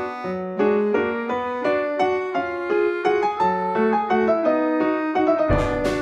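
Background music: a keyboard melody of quick, evenly paced notes; near the end fuller accompaniment comes in with a crash.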